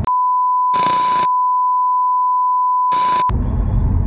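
A steady, single-pitch censor-style bleep, about three seconds long, edited in over the audio so the car's background sound drops out beneath it. Two short hisses sound under it, about a second in and near the end.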